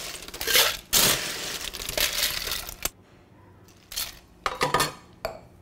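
Ice cubes being scooped out of an ice well with a metal cocktail shaker tin, clattering and rattling against the metal for about three seconds, followed by a few sharp clinks near the end.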